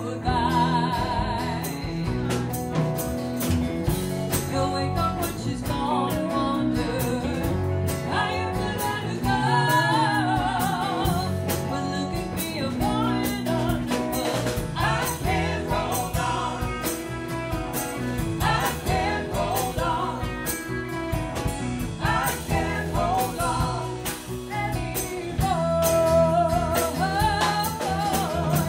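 Live band playing a song: electric and acoustic guitars and drums, with voices singing with vibrato over the top.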